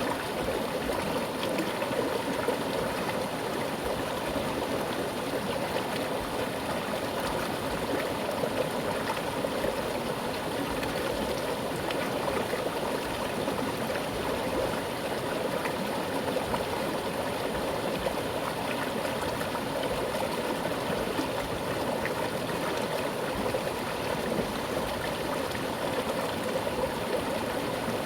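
Mountain stream running with a strong current over rocks, a steady rushing and gurgling of water.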